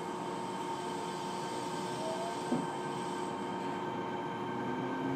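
Fukuoka City Subway 1000N series train heard from inside the car while running: steady rumbling ride noise with several steady whining tones from the running gear, and a short rising tone about two seconds in.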